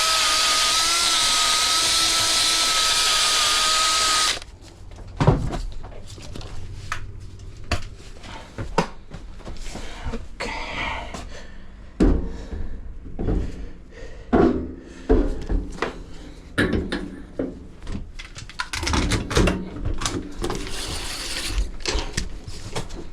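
A power tool runs steadily with a high whine, then cuts off about four seconds in. After that come scattered knocks and clatter of tools and parts being handled.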